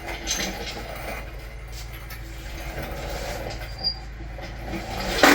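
Hand tools and engine parts being handled during engine assembly: scattered light clicks and scrapes over a steady low hum, a short squeak about four seconds in, and a sharp clack near the end.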